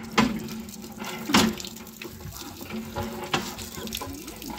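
Hand pump being worked, water pouring from its spout and splashing into the basin below, with two sharp knocks in the first second and a half.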